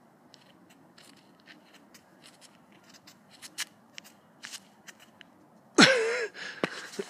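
A man straining in a handstand: faint scattered ticks and rustles, then about six seconds in a sudden loud strained grunt that falls in pitch, followed by more short effortful breaths and noises.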